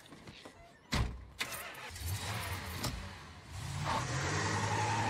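A sharp thump about a second in, then a car engine starting and running, growing louder toward the end.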